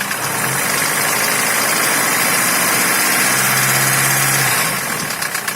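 Opel Ascona 1.8 four-cylinder engine held at raised revs, where its rapid knock fades into an even running sound; near the end it drops back to idle and the ticking knock returns. The knock persists despite a new camshaft and new hydraulic lifters, and seems to go away at about 1500 rpm.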